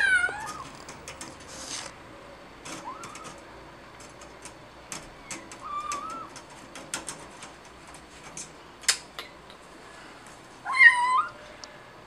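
Cat meowing about four times, the loudest call near the end, while clinging to a window insect screen; between the calls come many short sharp clicks and scrapes of its claws catching in the screen mesh.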